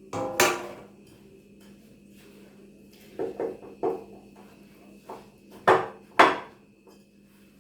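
Kitchen utensil clinking against a dish, a string of sharp knocks each ringing briefly, the loudest two near the end, as the biscuit base is worked into a tart mould.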